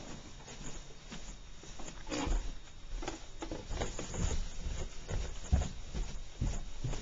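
Footsteps going down carpeted stairs: a run of low, dull thuds about every half second to second, starting about two seconds in, with rustling from the handheld camera.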